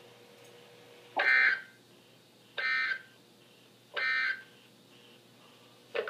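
Three short buzzing data bursts of the Specific Area Message Encoding (SAME) end-of-message code from a NOAA Weather Radio broadcast, heard through weather radio speakers, about a second and a half apart. They mark the end of the Emergency Alert System message.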